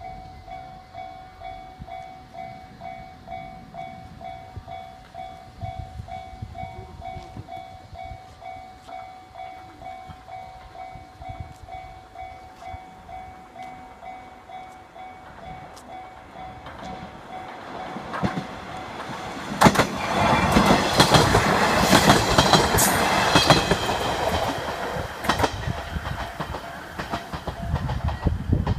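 Japanese level-crossing warning bell ringing in a steady repeated ding. More than halfway in, a train approaches and passes over the crossing: its running noise swells to become the loudest sound, with rapid clacks of the wheels over the rail joints, and drowns out the bell.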